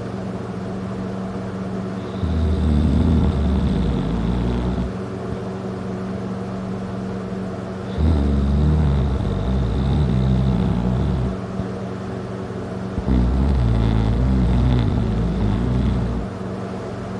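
Very loud snoring from a person passed out drunk on a bed. Three long rumbling snores, each about three seconds, come every five to six seconds, with quieter breathing between.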